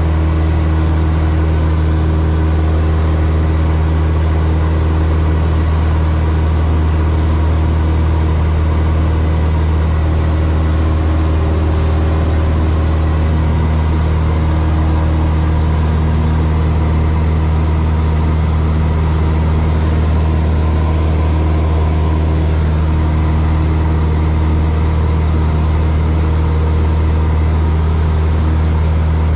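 Single-engine light aircraft's piston engine and propeller in flight, a steady low drone heard from inside the cockpit.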